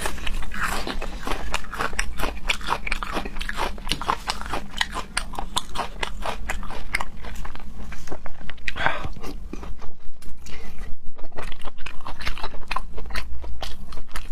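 Close-miked crunchy chewing and biting from a mukbang eater, a dense crackle of crunches that settles into steady chewing at about four crunches a second in the second half.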